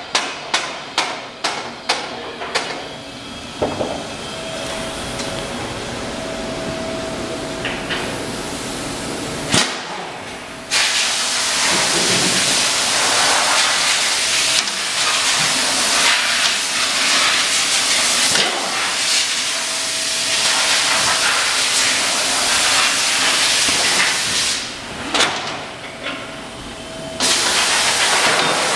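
Workshop noise: a quick run of sharp knocks in the first few seconds, then a loud, steady hiss that starts about ten seconds in, drops out briefly near the end and comes back.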